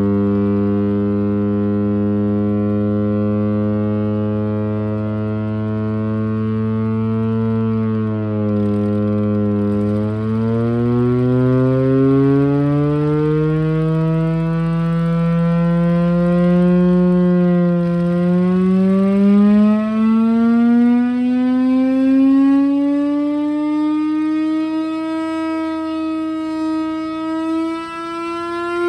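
Chrysler air raid siren, the Hemi V8-driven Bell Victory siren, wailing on the attack signal: its loud, deep tone holds low for about eight seconds, then climbs steadily in pitch, dipping briefly twice, to a much higher note near the end.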